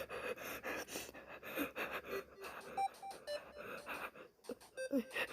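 A person's rapid, shaky breathing with gasps while crying, the heavy breathing of an anxiety attack.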